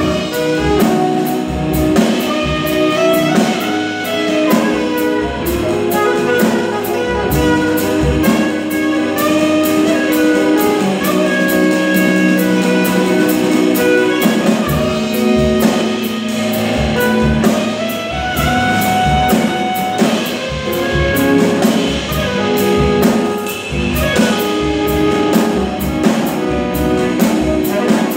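Live jazz quartet playing: saxophone, guitar, grand piano and drum kit, with held melodic notes over steady drum strikes.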